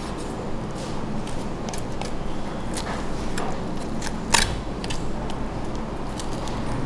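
Large kitchen knife cutting along the ribs and backbone of a raw suckling pig: a string of short, sharp clicks as the blade goes through rib cartilage and bone, with one louder crack about four seconds in.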